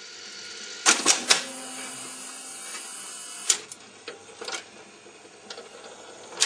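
Jukebox record-changer mechanism clattering as it lowers a record onto the turntable: a few sharp clicks and clunks about a second in, another near the middle, then lighter ticks, over a steady hiss.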